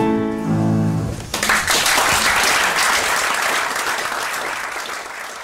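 The song's final held chord rings out for about a second, then a theatre audience applauds, the clapping slowly fading near the end.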